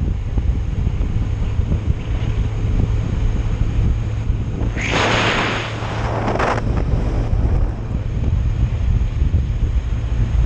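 Vehicle riding noise: steady low engine and wind rumble on the microphone. About five seconds in, a hissing rush lasts a second or two.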